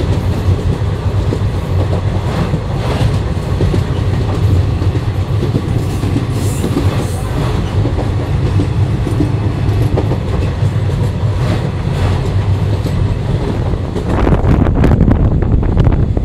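Passenger express train running at speed across a river bridge, heard through an open coach window: a steady low rumble of wheels on the rails with scattered clatter, getting louder near the end.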